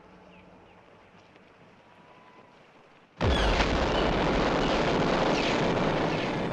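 A sudden loud blast about three seconds in: a deep boom that opens into a dense roar of noise, holding for about three seconds before slowly easing off. Before it there is only faint background noise.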